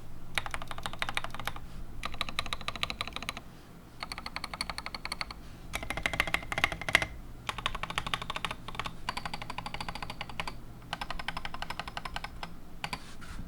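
Typing on a TM680 65% mechanical keyboard with Gateron Oil King linear switches and tall SA-profile keycaps: fast runs of keystrokes in bursts of a second or two, broken by short pauses.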